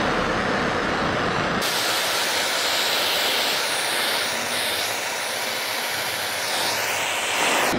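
Handheld gas torch burning with a steady hiss as it heats plastic to soften it for reshaping. The sound changes abruptly about one and a half seconds in, turning brighter and more hissy.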